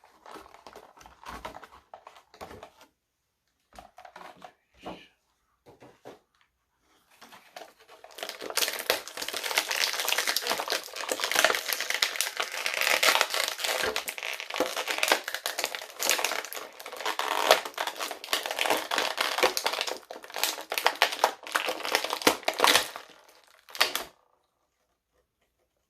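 Plastic toy packaging handled and crinkled as an action figure is worked out of its box tray: a few scattered rustles at first, then about sixteen seconds of dense, loud crackling and crinkling that stops abruptly near the end.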